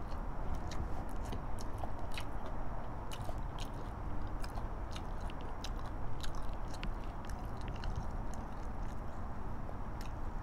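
A person chewing a mouthful of braised pork and egg, with many small mouth clicks scattered throughout, over a steady low background rumble.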